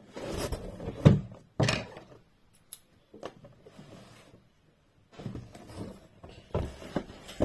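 Cardboard box being opened and handled by hand: a string of irregular knocks and scraping noises, the sharpest knock about a second in.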